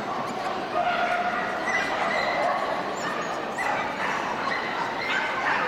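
Dogs yapping and whining, short high-pitched yips and drawn-out whines, over the steady murmur of a crowd in a large hall.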